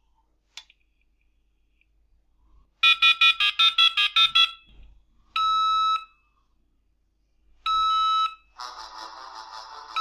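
A dial-up modem dialing a phone number in touch tones: a quick run of about a dozen short beeps through its small speaker, then three short steady tones a couple of seconds apart. A mobile phone starts ringing with a ringtone near the end as the call comes in; in this setup each incoming call's ringing stands for a Morse dot or dash.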